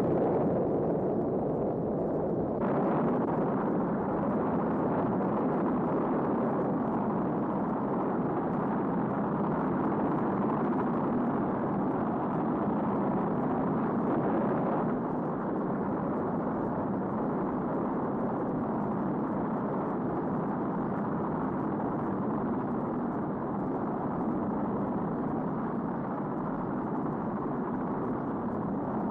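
Saturn V rocket's first-stage F-1 engines roaring at liftoff: a dense, steady rumbling noise that builds just before and holds throughout, losing some of its upper hiss about halfway through.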